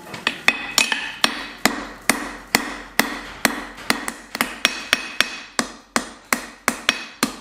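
Hand hammer striking a hot steel bar on an anvil in a steady rhythm, about two to three blows a second, each blow with a short metallic ring from the anvil.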